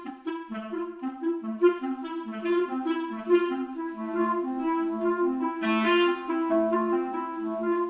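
Sampled orchestral woodwind from the Spitfire Studio Woodwinds library playing a melody. The notes are short at first, then longer and held from about four seconds in.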